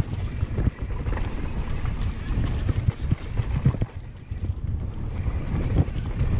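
Wind rushing over the camera microphone while a mountain bike descends a dirt trail at speed. The tyres rumble over the ground, with scattered knocks and rattles from the bike going over bumps.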